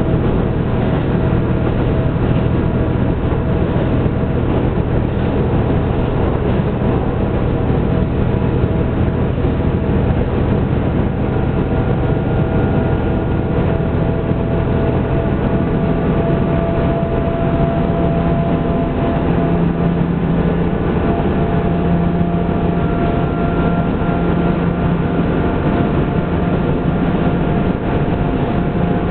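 Diesel railcar running along the line: a steady engine drone mixed with rolling rail noise, with a hum that shifts pitch a little in the second half.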